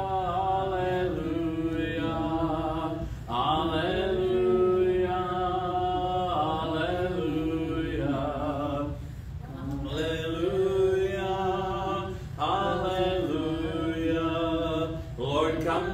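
A congregation singing a hymn a cappella, led by a man's voice, in sustained phrases with short breaks for breath between them.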